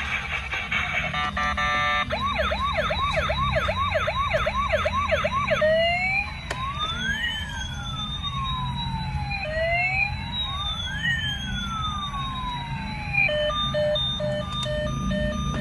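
Electronic siren of a toy ambulance cycling through its modes. First comes a fast yelp of two or three rising sweeps a second, then a slow rising-and-falling wail. A little before the end it changes to an evenly pulsed beeping pattern.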